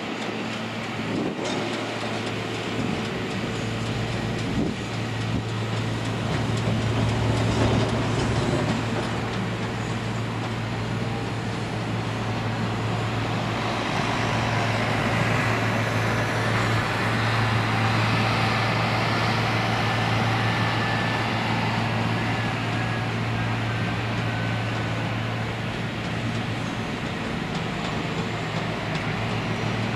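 Jet engines idling on the airfield: a continuous deep hum with a broad rushing noise over it, and a faint high turbine whine that slowly falls in pitch about halfway through.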